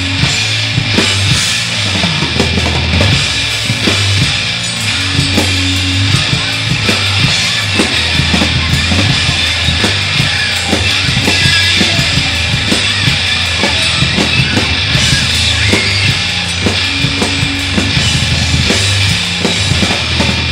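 Loud rock music played on drum kit, bass guitar and effects-processed electric guitar, with busy, rapid drumming over held bass notes.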